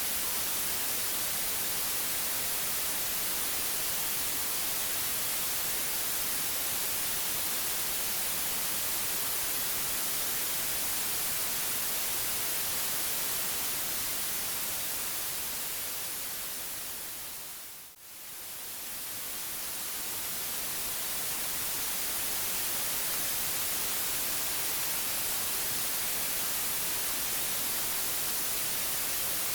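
Steady white noise hiss, brightest in the high end. About eighteen seconds in it fades down over a few seconds to a brief low point and swells back up to full level.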